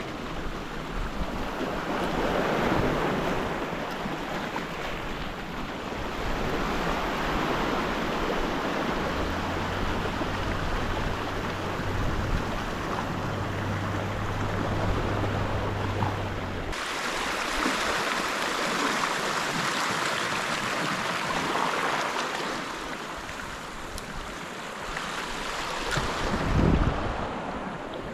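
Ocean surf breaking and washing on the shore, swelling and ebbing, with wind buffeting the microphone. The sound changes abruptly about two thirds of the way through.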